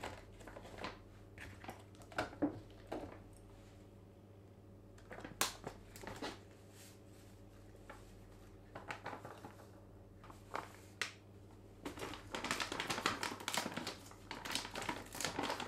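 Plastic pouch crinkling and rustling as it is opened and powder is tipped out of it into a plastic jug on kitchen scales, with scattered light taps and clicks. The crinkling gets denser near the end.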